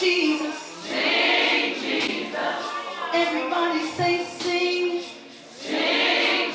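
Gospel choir singing, with two short hissy bursts about a second in and near the end.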